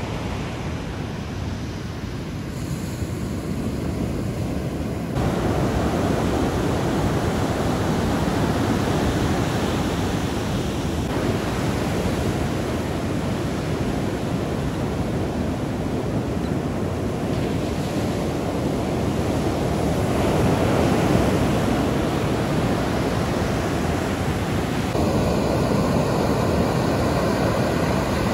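Ocean surf breaking and washing up on a sandy beach: a steady rush of waves that changes abruptly several times between shots. A faint steady hum joins in the last few seconds.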